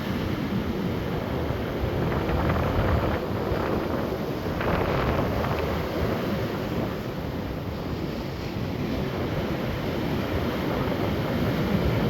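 Ocean surf breaking and washing on a beach, with wind buffeting the microphone. The surf swells briefly louder about four seconds in.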